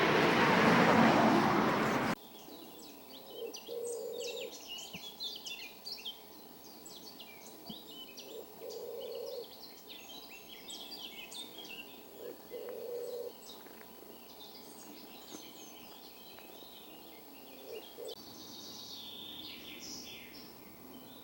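Birds chirping and twittering, several at once, with a lower, steady call about a second long repeating roughly every four seconds. It opens with a loud rushing noise that cuts off suddenly about two seconds in.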